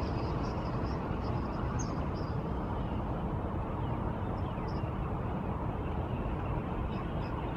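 Steady outdoor background noise, a dull rumble of traffic or wind, with faint short high chirps scattered through it.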